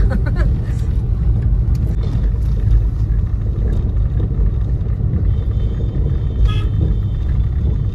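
Steady low rumble of a moving car, with engine and road noise heard from inside the cabin. A brief higher sound cuts in about six and a half seconds in.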